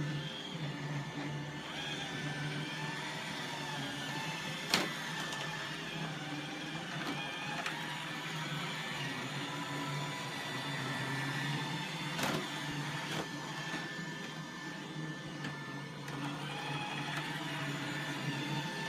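iRobot Roomba 880 robot vacuum running over carpet, a steady motor whirr whose pitch wavers. Two sharp clicks come about five seconds in and again around twelve seconds.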